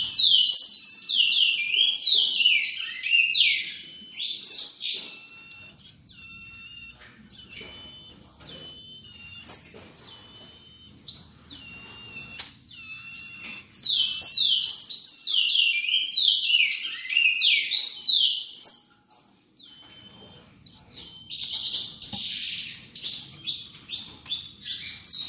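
Small caged songbirds chirping: bunches of quick, high, downward-sweeping chirps with short gaps between them, and a denser run of calls near the end.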